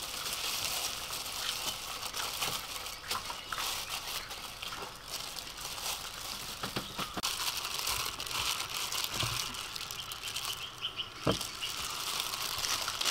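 Crinkling rustle of disposable plastic gloves as hands mix flour in a tray and egg batter in a steel bowl, with a few light clicks.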